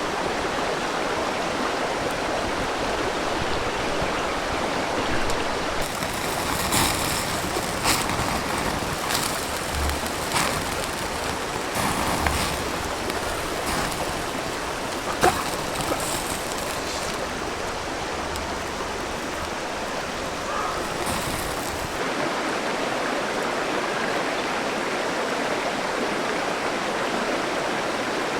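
A river flowing, a steady rush of running water. From about six seconds in until about twenty-two seconds, short clicks and knocks sound over it now and then.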